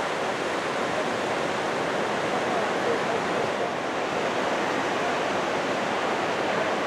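Steady rushing of the upper Sacramento River running over rocky rapids: an even, unbroken wash of water noise.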